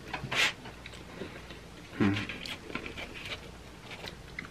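Close-miked chewing of pizza, with wet mouth clicks and small crackles, while pizza is picked at in a cardboard pizza box. A short crisp noise comes just after the start and a brief low mouth sound about two seconds in.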